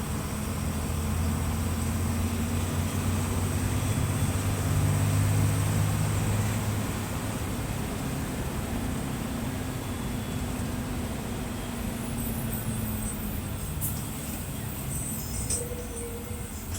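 Mercedes-Benz OF-1721 bus's diesel engine running with a steady low drone, swelling louder about four to six seconds in and then easing back. A few light clicks and rattles near the end.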